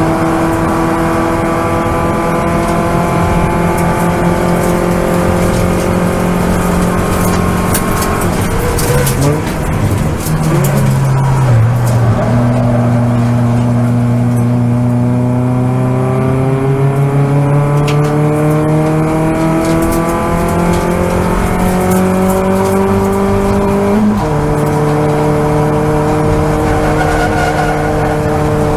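Toyota Vios race car's four-cylinder engine heard from inside the cockpit. It holds high revs, then about eight seconds in the note falls sharply as the car slows for a corner and shifts down. It climbs slowly for about twelve seconds under acceleration, and near the end drops suddenly once with an upshift.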